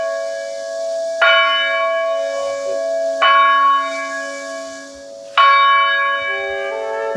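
A newly installed church tower bell is struck three times, about two seconds apart, and each stroke rings on with a long hum. Near the end, other bells begin sounding further notes.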